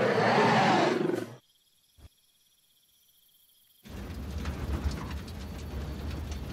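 A dinosaur roar sound effect, loud with a bending pitch, that cuts off about a second and a half in. After a short silence and a single click, a steady low rumble with an outdoor hiss starts near the four-second mark.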